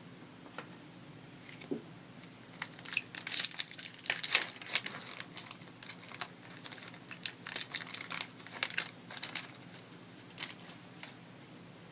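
Foil wrapper of a trading card pack crinkling and tearing in the hands as the pack is opened, in irregular bursts that are busiest in the middle and trail off near the end.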